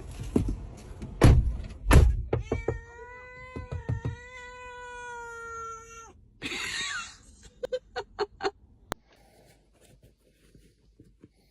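Two loud thumps, then a cat's long, drawn-out meow held steady for about four seconds, followed by a short noisy burst and several short, clipped calls.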